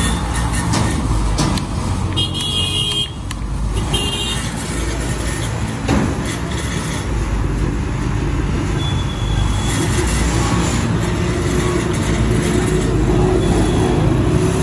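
Busy street traffic: engines running steadily, with short vehicle horn toots, the clearest about two and four seconds in.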